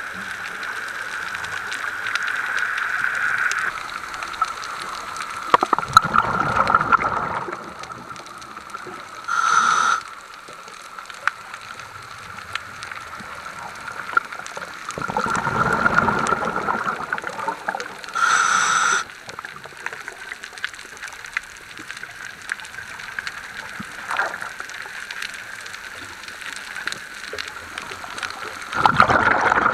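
A scuba diver breathing through a regulator underwater: three bubbling exhalations about ten seconds apart, two of them followed a few seconds later by a short hiss of inhalation, over a faint steady whine.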